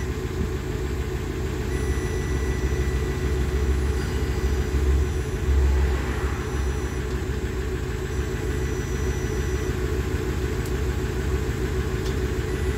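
Diesel engine of an Iveco Daily van idling steadily, heard from underneath the vehicle.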